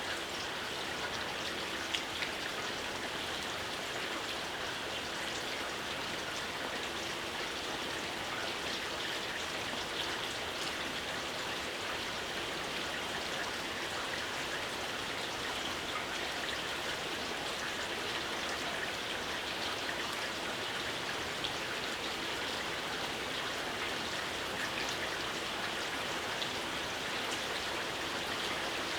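Steady gentle rain falling, a constant hiss with many small drops pattering on surfaces.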